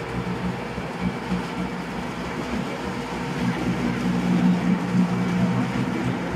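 Small river passenger boat's engine running steadily as it comes in to a pier, heard from on board as a low hum over a wash of noise. It grows somewhat louder about two-thirds of the way through.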